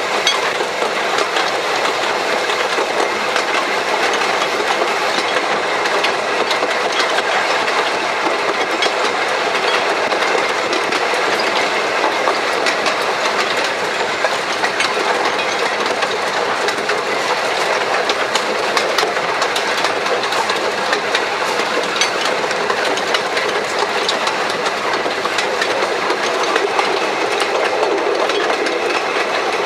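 1883 Hunslet narrow-gauge steam locomotive running along the line, heard from the tender just behind the footplate. A steady loud running noise is dotted with frequent small clicks and knocks from the wheels and track.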